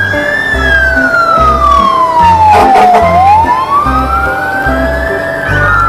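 Fire engine siren wailing, its pitch sliding slowly down, back up and down again in long sweeps. It plays over background music with a steady beat.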